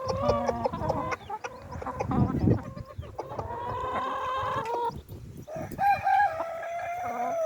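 Bantam chickens clucking, then a bantam rooster crowing in two long drawn-out calls in the second half.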